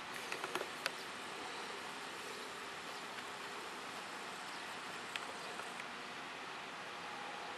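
Steady outdoor garden background with a faint insect-like buzz, broken by a few short soft clicks near the start and one more about five seconds in.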